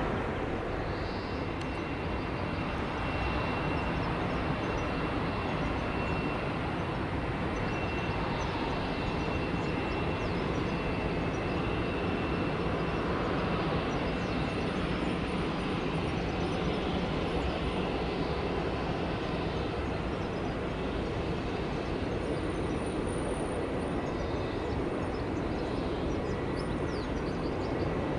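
Airbus A321neo airliner's jet engines running, a steady broad rumble with a faint high whine through the first half.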